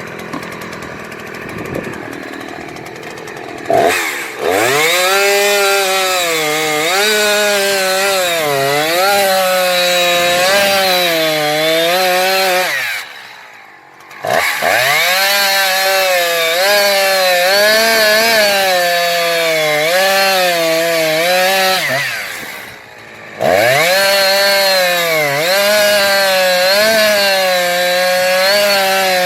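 Husqvarna 357XP two-stroke chainsaw running at a lower speed at first, then revved to full throttle about four seconds in. Its pitch sags and wavers as the chain bites into the wood. It eases off twice, briefly, and goes back to full-throttle cutting each time.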